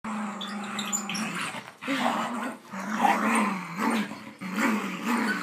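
Play growling from dogs in a game of tug-of-war. It is one long steady growl at first, then after a short break a run of shorter growls that rise and fall in pitch.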